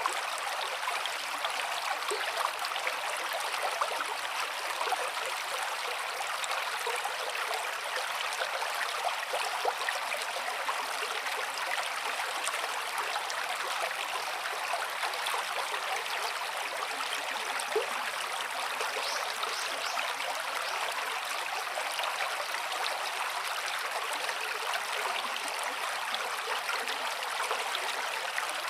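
A stream of running water flowing steadily: an even rush with small trickles and splashes and no deep rumble.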